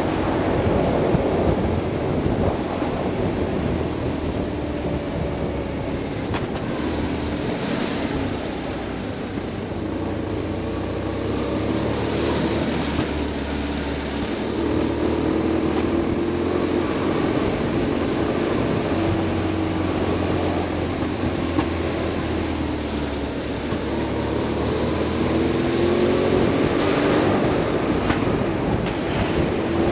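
BMW R 1150 RS boxer-twin engine running under way, its note rising and falling a little with the throttle, under steady wind rush on the microphone.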